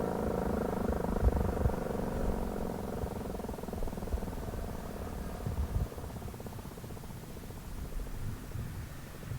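Landert MSL-3 motor siren winding down, its several steady tones fading out over about five seconds, with a low rumble underneath.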